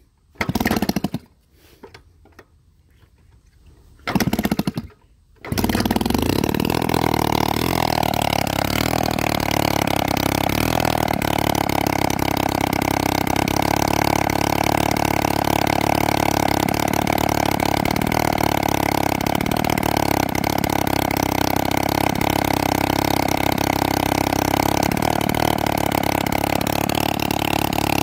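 A 50cc two-stroke minibike engine kicked over. It fires briefly twice, then catches about five seconds in and runs steadily with no exhaust pipe fitted while its carburetor idle screw is adjusted.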